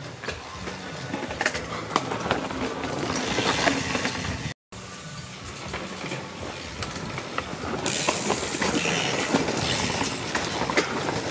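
Mountain bikes riding past on the race course: steady tyre noise with many small rattling clicks, growing louder. The sound breaks off briefly about four and a half seconds in, then builds up again.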